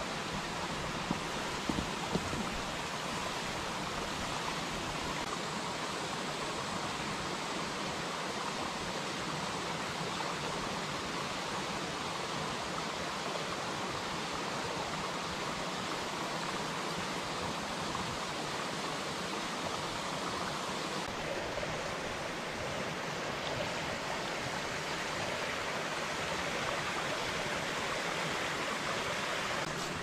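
Steady rush of running water, with a few faint clicks about one to two seconds in.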